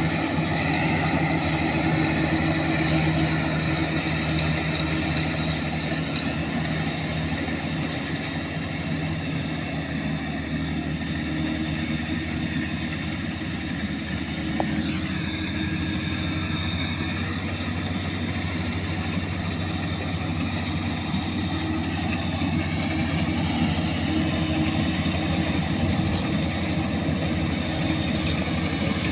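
Kubota combine harvester's diesel engine running steadily at constant speed, an even mechanical drone with no change in pitch.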